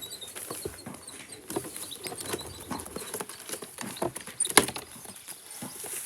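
Young racing pigeons scrabbling and shuffling in the loft as one is caught: an irregular run of light clicks and scrapes, with one sharp knock about four and a half seconds in.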